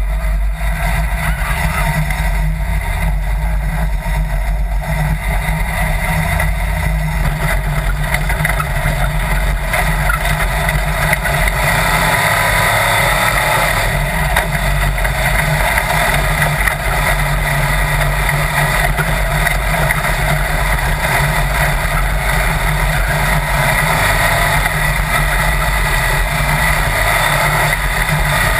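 Sand rail dune buggy's engine running, louder from about eight seconds in as the buggy gets up to speed across the sand.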